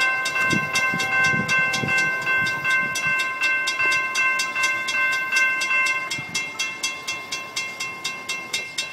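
Railroad grade crossing warning bell ringing rapidly, about four even strikes a second, its ringing tone fading about six seconds in while the strikes continue.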